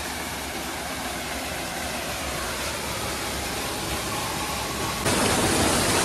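Small waterfalls pouring into a rock pool: a steady rush of falling water, which becomes louder and brighter about five seconds in.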